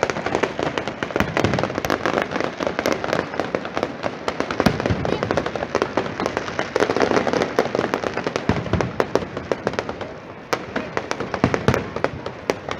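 Fireworks display: shells bursting overhead with a dense, rapid crackle of popping stars and occasional heavier bangs, easing off briefly about ten seconds in.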